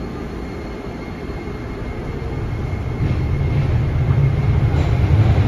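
Toei Oedo Line 12-600 series linear-motor subway car with Hitachi SiC VVVF inverter pulling away from a station, heard from inside the car. A faint steady high tone sounds as it starts moving, then the low running rumble grows louder from about three seconds in as the train picks up speed.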